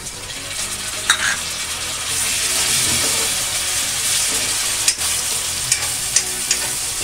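Chopped tomatoes sizzling in hot oil with browned onions in a kadhai, stirred with a metal ladle that clicks and scrapes against the pan several times. The sizzle is steady throughout and grows louder about two seconds in.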